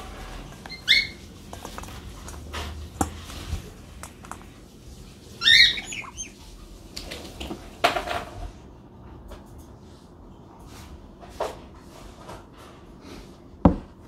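Young African grey parrot giving two short calls, one about a second in and a louder one around five and a half seconds in, amid scattered clicks and knocks as it eats from a stainless steel bowl.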